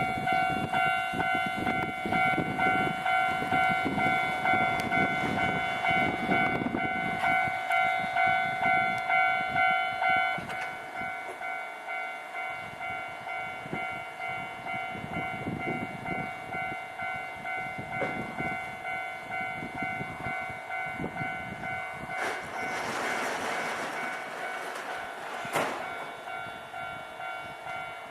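Japanese level-crossing warning bell ringing in a steady rapid rhythm, about two strikes a second, turning quieter about ten seconds in. Near the end a train passes over the crossing with a rush of wheel noise and a sharp click.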